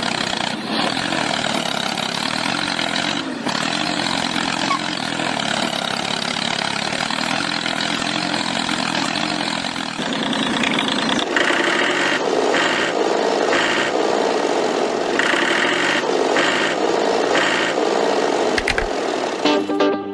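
An engine running steadily; about halfway through its sound turns to a regular pulsing.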